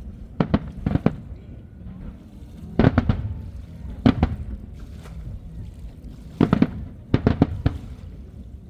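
Fireworks shells bursting in a rapid series of sharp bangs, arriving in clusters of two to four with short gaps between them.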